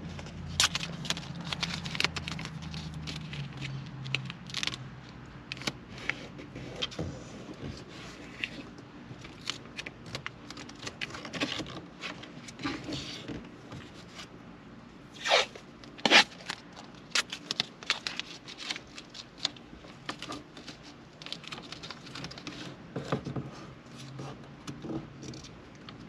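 Blue masking tape being pulled off the roll in short rips, torn off and rubbed down onto the car's center-console trim, with scraping and rustling between the rips. Two longer, louder rips come about fifteen and sixteen seconds in.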